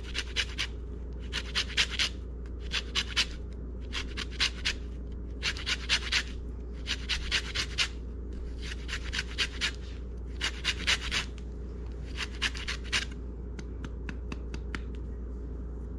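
A lemon being zested on a handheld stainless-steel grater: the rind scraping across the metal teeth in short bursts of quick rasping strokes, a little over a second apart, stopping shortly before the end.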